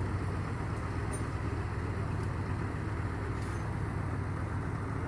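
Engine of a heavy vehicle idling, a steady low rumble.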